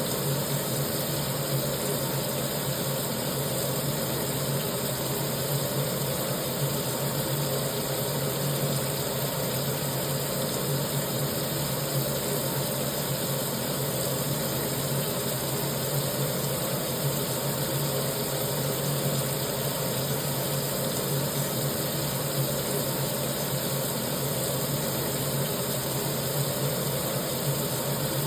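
Tap water running steadily into a kitchen sink, an even rushing hiss with a low drumming hum from the water striking the basin.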